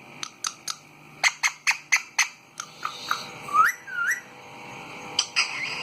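Pet parrot giving a quick series of sharp clicks and chirps, then two short rising whistles, then a few more clicks.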